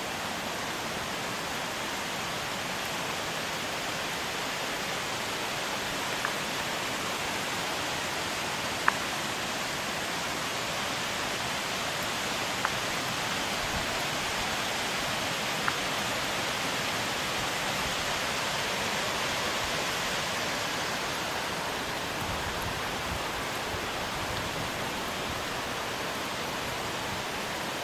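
Steady rush of running water from a rain-swollen mountain stream, with a few faint sharp ticks.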